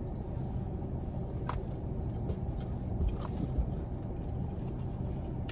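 Steady low rumble inside a car's cabin, with two or three faint clicks.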